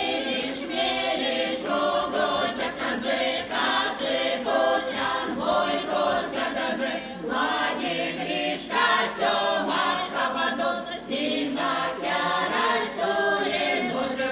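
Folk choir singing a traditional Veps song, many voices together.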